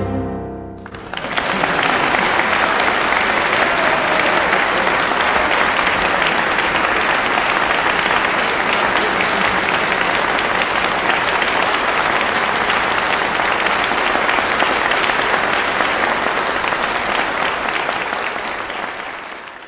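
A chamber ensemble's final chord dies away, and about a second in an audience breaks into steady applause, which tapers off near the end.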